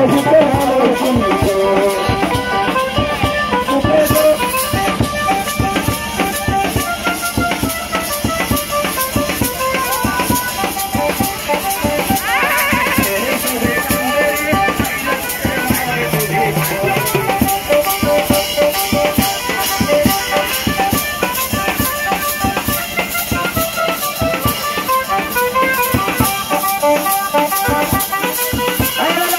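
Lively Bengali folk dance music played live, with drums and a fast rattling percussion beat under a held melody line.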